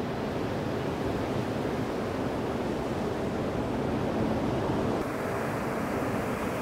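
Ocean surf breaking and washing up on a sandy beach, a steady rushing wash of water.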